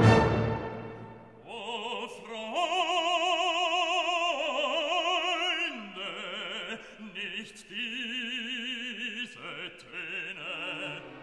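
Music: a loud chord at the very start fades away, then an operatic voice sings long held notes with a strong, even vibrato, changing pitch every second or two.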